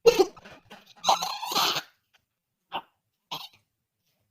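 A person's acted coughing and strained, choking cries: a short burst at the start, a longer harsh one from about one to two seconds in, then two faint short sounds. They play out someone being struck down by the virus, whose symptoms include bad coughing.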